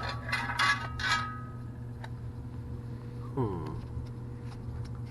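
A few quick metallic clinks and scrapes in the first second, as the metal parts of an electric water heater are handled. A steady low hum runs underneath. About three and a half seconds in there is a short falling vocal-like sound.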